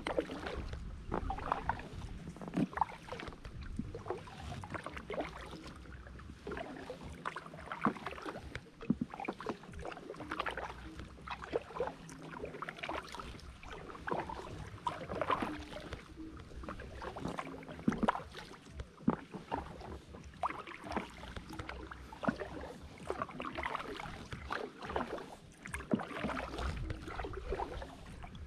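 Kayak paddle dipping and pulling through calm water, with splashes and water dripping and trickling off the blades, over a low rumble that comes and goes.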